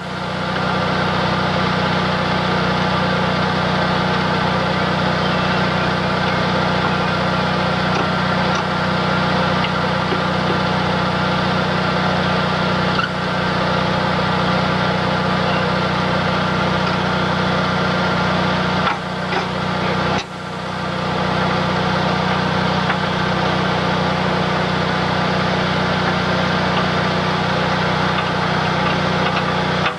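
Vehicle engine running steadily, with two brief drops in level about two-thirds of the way through.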